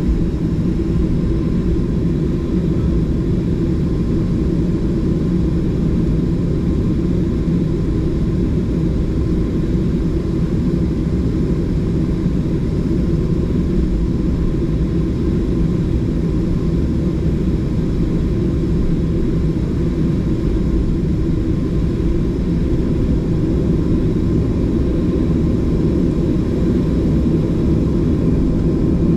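Boeing 737 jet engines heard from inside the airliner cabin: a steady low drone with a faint steady hum.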